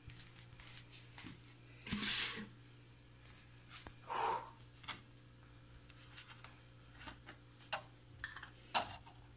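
Quiet kitchen room tone with a steady low hum, broken by two short rustles about two and four seconds in and a few light clicks and knocks near the end: small handling noises around a counter.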